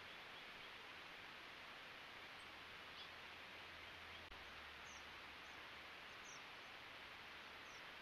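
Near silence: a steady hiss, with a few faint, short, high chirps spaced about a second or more apart in the second half.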